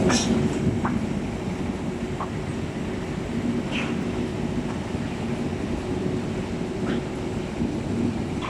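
Steady drone of steel rolling-mill plant machinery with a gas billet-heating furnace, a low hum carrying a couple of steady tones, broken by a few short sharp knocks.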